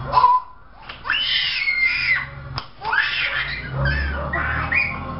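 A young child's high-pitched excited squeals, several in a row, the longest about a second in.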